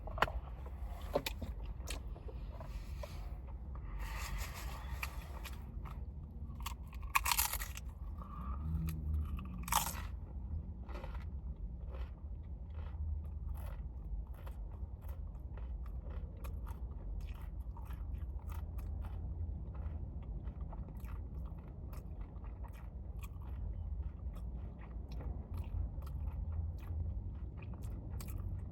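A person chewing and crunching food close to the microphone: a dense run of small wet clicks and crunches, with a few louder crunches in the first ten seconds.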